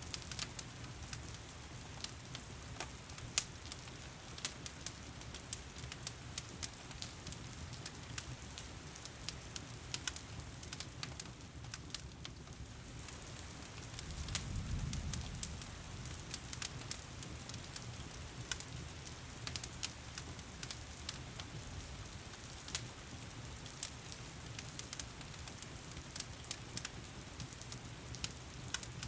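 Heavy rain with a crackling wood fire: an even hiss of rain under scattered sharp pops and snaps from the burning logs. About halfway through there is a brief low rumble.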